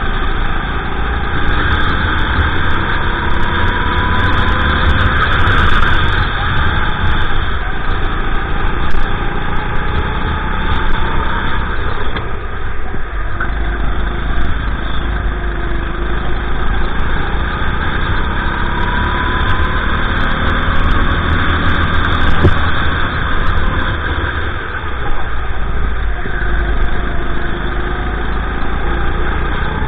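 Honda GX390 single-cylinder four-stroke engine of a Sodi RT8 kart running under load, heard from the driver's seat, its pitch climbing along the straights and falling away as the kart slows for corners, with dips about twelve and twenty-four seconds in.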